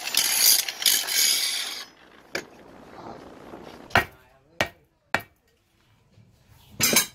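Angle grinder grinding the steel of an axe head, cutting off about two seconds in. Then four sharp knocks about a second apart, and a short louder noise near the end.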